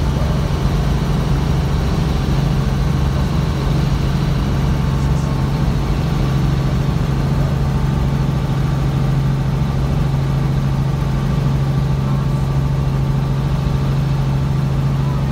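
Robinson R44 Raven helicopter in cruise flight, heard from inside the cabin: the steady drone of its six-cylinder piston engine and rotor, with a strong, even low hum.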